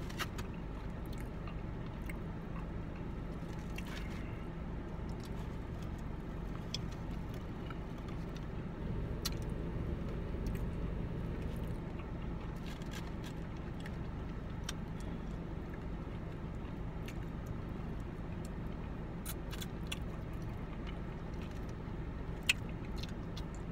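Chewing and biting while eating fried chicken, with small scattered clicks of handling the food, over a steady low hum inside a car. A single sharp click stands out near the end.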